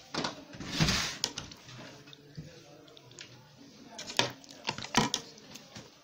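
A metal serving spoon clinking and scraping against a metal cooking pot as chicken korma is spooned onto boiled rice, loudest about a second in, with a few more sharp clinks around four to five seconds in.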